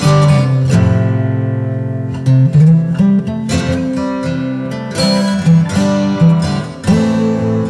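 Background music: an acoustic guitar playing plucked notes and chords, each struck note dying away before the next.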